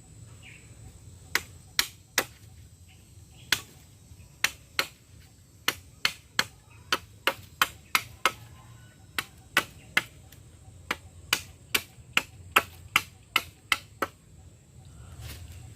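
A series of about thirty sharp, short knocks, irregular at roughly two a second, starting about a second in and stopping shortly before the end.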